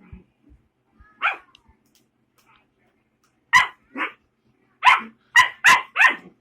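A puppy barking in short, high yaps: one alone about a second in, a pair a couple of seconds later, then four in quick succession near the end.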